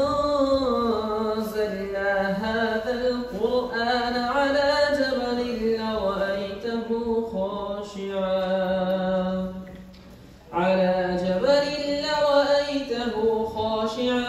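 A young male voice reciting the Quran aloud in melodic tajweed style, drawing out long held notes that slowly rise and fall. It breaks off briefly for a breath about ten seconds in, then goes on.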